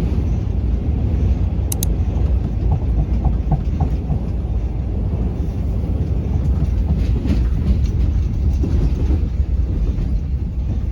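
Steady low rumble and rattle of a moving vehicle, with a brief click about two seconds in.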